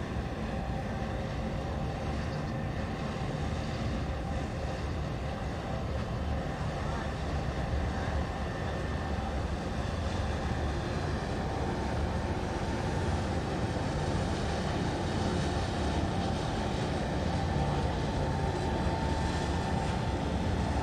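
Steady low mechanical rumble with a faint steady hum, growing slightly louder in the second half.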